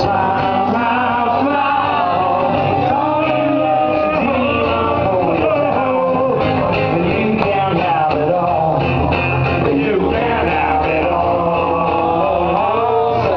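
Live band playing rock music: strummed acoustic guitar and electric guitar, with men singing along into microphones.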